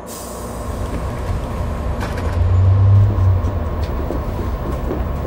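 Low rumble of a city bus heard from inside the passenger cabin, swelling louder for about a second midway, with a few faint clicks and rattles.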